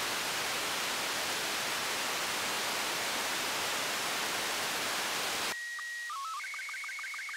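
Loud, even radio static from an RTL-SDR receiver in upper-sideband mode on a FLEETSATCOM UHF satellite channel. About five and a half seconds in, the hiss cuts off and a slow-scan television (SSTV) signal starts: a steady high leader tone for about half a second, a short run of stepped lower tones (the mode header), then a fast, even rhythm of beeping tones, several a second, as the picture is sent line by line.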